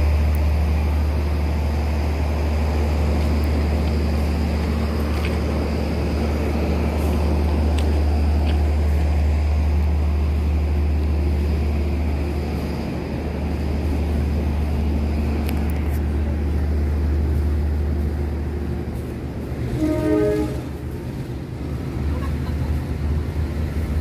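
Railway diesel engine running steadily at idle next to the platform, a deep continuous hum, with a short pitched toot about twenty seconds in.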